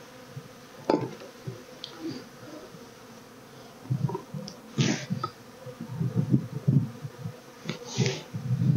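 Honeybees buzzing around an open hive, a steady hum with louder swells as bees fly close. Two short hissing puffs sound about five seconds in and near the end.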